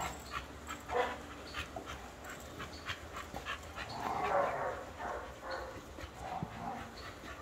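Several dogs close by, panting and moving about, with irregular faint clicks and a louder dog sound around four seconds in.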